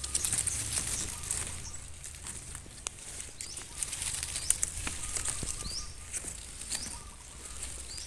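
Long grass leaves rustling and crackling as they are pushed aside close to the microphone, in a run of small clicks. A few faint short high chirps sound now and then behind it.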